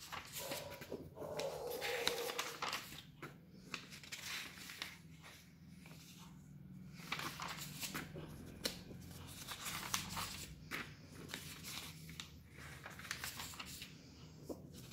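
Magazine pages being turned by hand: repeated papery swishes, crinkles and sharp flicks of paper, over a faint low hum.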